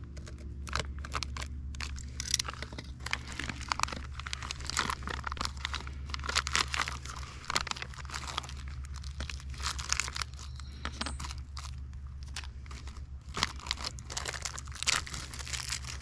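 Clear plastic parts bags crinkling and tearing in gloved hands as small shifter-kit parts are unwrapped: a dense, irregular crackle, over a steady low hum.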